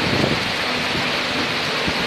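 Steady rushing hiss of water from the stream running over the rock lip of Nohkalikai Falls, heard from close by.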